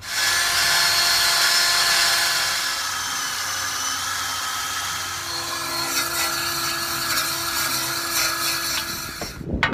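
DeWalt cordless drill spinning a wire wheel brush against the threads of a rusty bolt, cleaning them so the tight bolt can come off. A steady whine with a scratchy hiss starts at once and cuts off just before the end.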